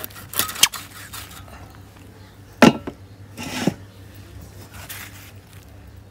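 Knife chopping through a ribbon fish: a few light quick cuts about half a second in, then two heavier chops, about a second apart, in the middle.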